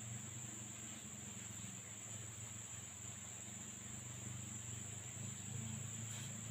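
Insects calling in one steady, unbroken high-pitched drone, with a low hum underneath.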